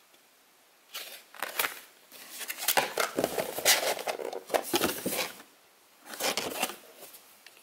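Clear moulded plastic packaging tray crinkling and crackling as it is handled and lifted out of a cardboard box, in three bursts with a short pause before the last.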